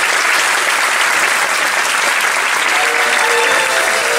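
Theatre audience applauding, a dense steady clapping. About three seconds in, music comes in underneath with long held notes.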